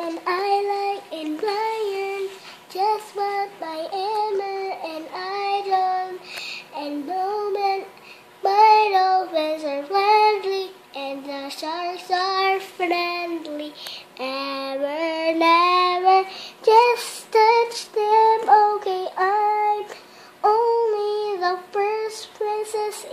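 A child singing an unaccompanied tune on her own in a high voice. The phrases have held, wavering notes and short breaths between them.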